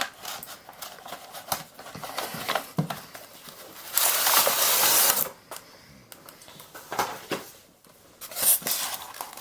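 A model locomotive's box and packaging being handled as the model is taken out: scattered clicks and short rustles, with one louder scraping rustle lasting about a second near the middle.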